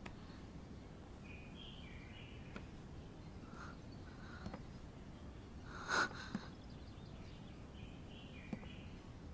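Faint ambience of small birds chirping now and then over a low steady hiss, with one brief louder sound about six seconds in.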